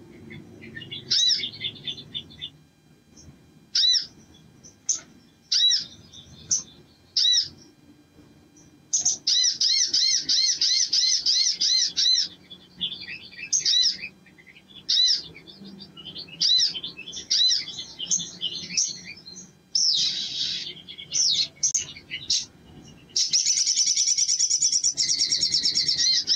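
Male olive-backed sunbird singing: short bursts of high, thin chirps, then long, fast trills about nine seconds in and again near the end.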